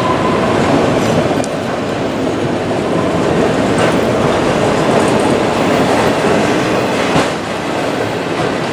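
Autorack freight cars of CSX train Q237 rolling past at speed: a steady rumble of steel wheels on rail, with a few sharp clicks as the wheels cross rail joints.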